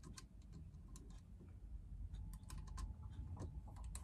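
Faint, irregular small clicks and ticks from fingers threading a lock nut onto a screw on a metal pet-wheelchair cart frame, coming more often in the second half.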